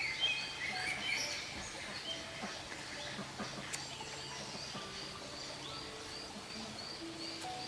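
Forest ambience: a high chirp repeated evenly about three times a second, with other birds chirping briefly near the start.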